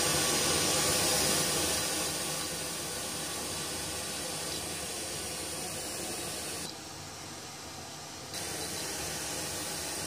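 Pink noise from the BSR 4000XR equalizer's built-in generator playing through hi-fi speakers: a steady, even hiss spread across all pitches. It drops in level about two seconds in, turns quieter and duller for about a second and a half near the end, then comes back.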